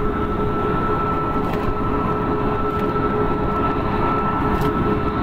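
Boeing 737-8 MAX's CFM LEAP-1B turbofan engines running at low taxi power, a steady engine noise with a constant two-pitched whine.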